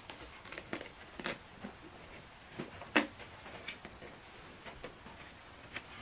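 A white protective packaging wrap rustling and crinkling in irregular short bursts as it is pulled off a portable speaker, with one louder crackle about halfway through.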